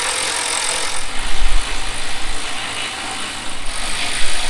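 Cordless ratchet motor whirring steadily as it spins out a bumper-support bolt, with a louder stretch about a second in.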